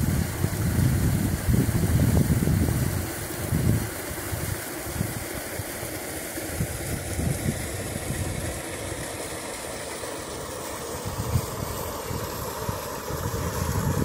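Shallow stream running, a steady hiss of water, under a low, uneven rumble that is strongest in the first four seconds.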